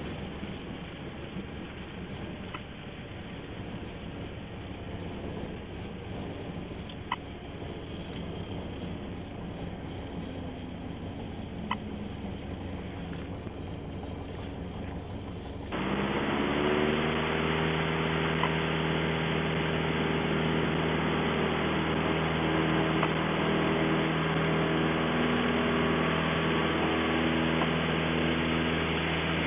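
Piper PA-28-180's four-cylinder Lycoming engine idling with a few faint clicks. About halfway through, the throttle goes in and the engine climbs to steady full power for the takeoff roll of a stop-and-go.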